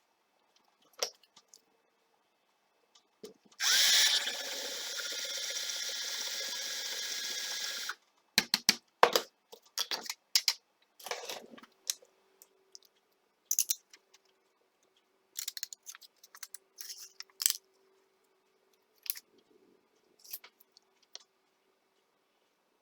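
A small battery-powered electric motor starts, runs steadily for about four seconds and stops, followed by a string of sharp clicks and knocks of small metal parts being handled.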